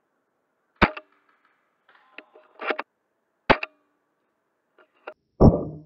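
Scattered sharp clicks and knocks, each with a short ring, separated by silence: single loud ones about a second in and about halfway, small clusters in between, and a louder, deeper knock near the end.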